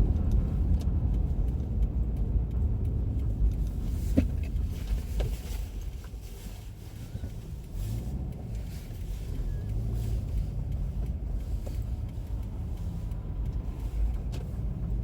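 Car interior while driving: steady low engine and road rumble, with a faint click about four seconds in.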